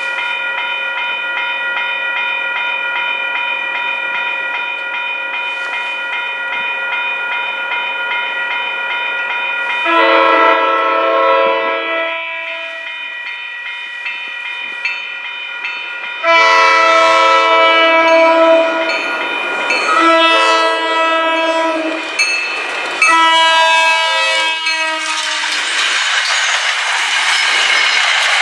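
Crossing bell ringing steadily, then an MBTA commuter train's locomotive air horn sounding four chord blasts for the grade crossing, the second the longest and the last dropping in pitch as the locomotive passes. The train then rushes through the crossing with loud wheel-on-rail noise.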